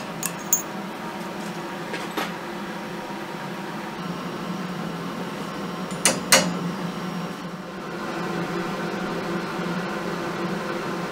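A steady fan-like hum with a few light metallic clicks, and about six seconds in, two sharp hammer taps on the heads of hand-forged iron nails standing in a wooden rack.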